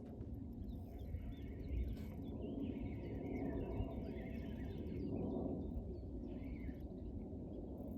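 Outdoor ambience: a steady low rumble with small birds chirping in short spells.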